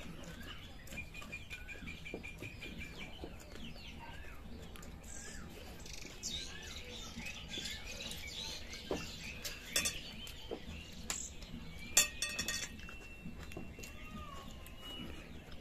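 Birds chirping in the background, with a run of quick repeated notes near the start. A few sharp clicks come through as well, the loudest about twelve seconds in.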